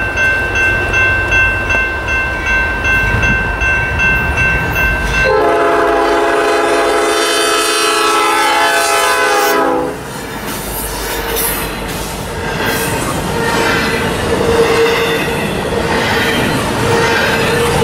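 A bell ringing in quick, even strokes, then a diesel locomotive's air horn sounding one long blast of about four and a half seconds as the leading Norfolk Southern AC44C6M passes close. After the horn, the steady rumble and clatter of loaded double-stack container cars rolling over the rails, with a faint wheel squeal near the end.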